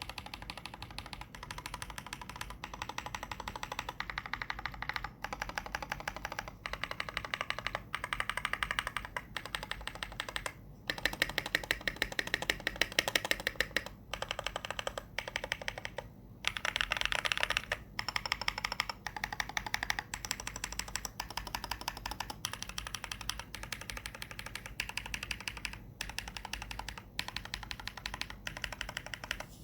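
Typing on a KBD75 V2 mechanical keyboard with lubed Holy Panda tactile switches, a brass plate and PBT keycaps: a fast run of key strokes with a few brief pauses. The keystrokes are loudest about eleven and seventeen seconds in.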